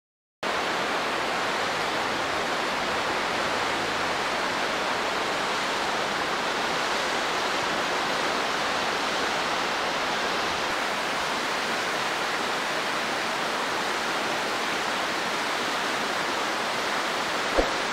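Steady rushing noise of flowing water, like a fast stream, starting abruptly about half a second in, with one short knock near the end.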